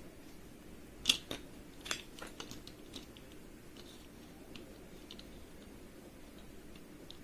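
Plastic Rubik's cube pieces clicking as they are pressed and snapped into the cube: a sharp snap about a second in, another just before two seconds, then a few lighter clicks and taps.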